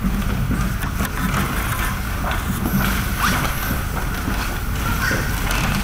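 A steady low rumble of background noise fills the large room, with faint scattered knocks and shuffles.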